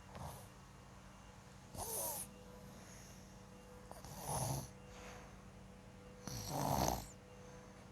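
A sleeping young boy snoring: four snores about two and a half seconds apart, the one near the end the loudest.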